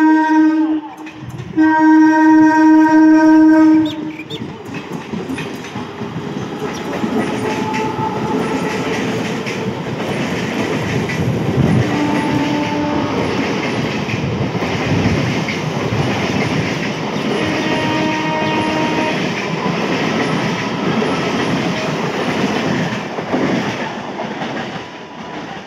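Electric multiple-unit suburban local train sounding its horn in a short blast, then a longer two-second one, then passing close by with a steady rumble and wheels clattering over rail joints. Two shorter horn blasts come midway, and the rumble eases near the end.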